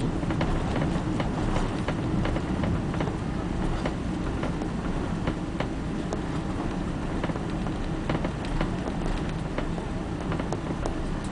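Cabin noise of a Boeing 777-300 on its landing rollout: a steady low rumble from the wheels on the runway and the engines, with frequent small clicks and rattles from the cabin, easing slightly as the jet slows.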